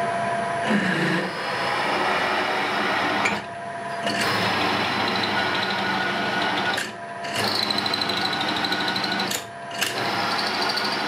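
Drill press running a 10 mm twist drill into a steel workpiece: a steady motor whine under the grating noise of the drill cutting steel. The cutting noise drops away briefly three times.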